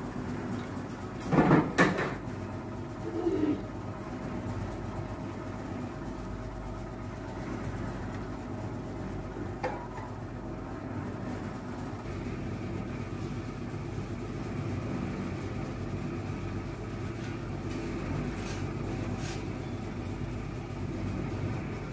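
Clinks and knocks of a serving vessel against a steel bowl and tray as vegetable curry is served, loudest about a second and a half in with a smaller knock a little later. After that only a steady low hum goes on.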